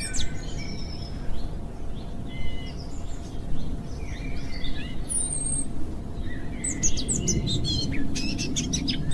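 Birds chirping in short, scattered calls over a low steady hiss of ambience.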